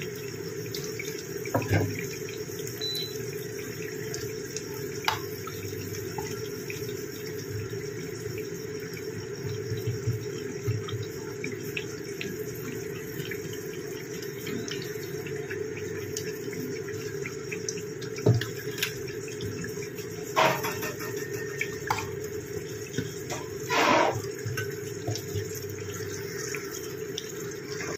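Besan-battered brinjal pakoras sizzling steadily in hot oil in a kadhai, fried golden and ready to come out. A metal slotted spoon knocks and scrapes against the pan a few times.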